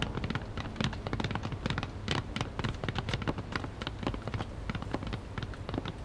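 Footsteps of several people in boots walking on a wooden floor: many irregular, sharp steps, several a second.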